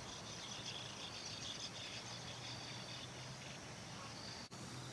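Insects chirping faintly in high, repeated pulses over a low steady hum, with a short click and a brief drop in sound about four and a half seconds in.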